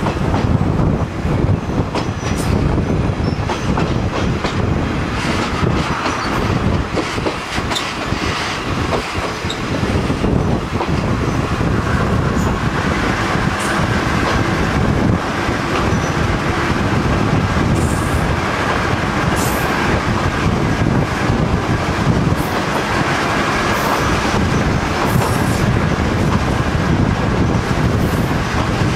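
Kominato Railway KiHa 200 diesel railcar running along the line: a steady rumble with the wheels clicking over the rail joints.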